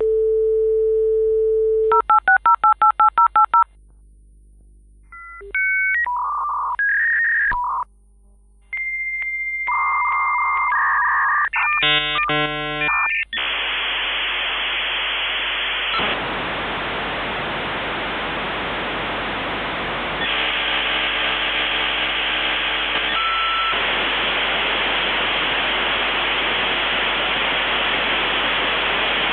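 Dial-up modem connecting to the internet. It starts with a dial tone and a quick run of touch-tone digits, then a pause, then the answering modem's whistles and handshake tones. From about halfway through it settles into a long, steady hiss of data noise.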